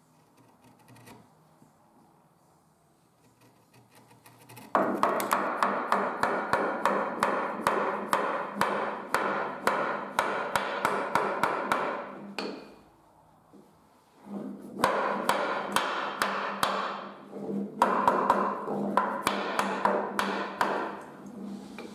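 Wooden mallet striking in quick runs of blows, about three a second, driving a maple rail tenon into the mortise of a turned table leg. The blows start about a quarter of the way in and stop twice briefly.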